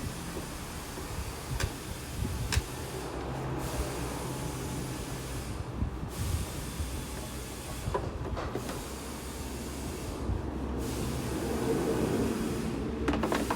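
Mitsubishi dump truck's engine running steadily with a hiss and low hum, with a few sharp clicks.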